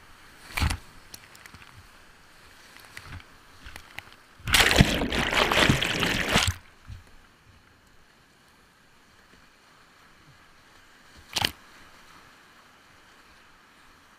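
Whitewater rapid heard from a kayaker's body-mounted camera: a faint steady river rush, broken by water splashing over the kayak and camera. There is a short splash under a second in, a loud burst lasting about two seconds midway, and another short splash later on.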